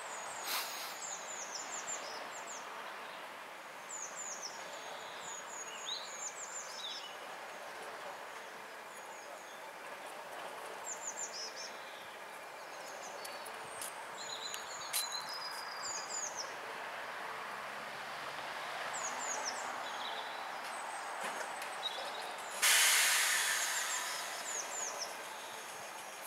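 Birds chirping over the steady idle of a Class 205 'Thumper' diesel-electric multiple unit's English Electric four-cylinder engine, the unit standing at a platform. About 23 seconds in, a sudden loud hiss of released air from the train cuts in and fades over a second or two.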